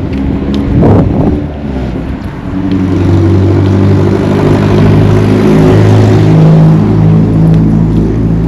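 A motor vehicle's engine running close by. It swells loud about two and a half seconds in and stays loud with a steady low hum. Wind buffets the microphone in the first seconds.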